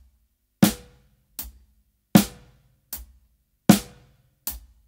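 Drum kit playing a slow, plain beat: kick drum on beats 1 and 3 alternating with a snare backbeat on beats 2 and 4, about 77 beats a minute. The louder snare strokes each ring briefly with a tone.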